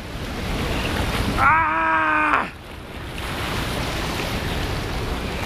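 Surf breaking and washing over rocks, with one long excited yell from a person about a second and a half in.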